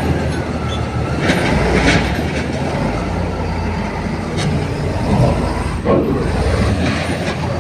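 Heavy diesel earthmoving machinery running under load, its engine droning steadily, with several sharp metal clanks and a brief squeal of steel parts as the stuck truck is worked free.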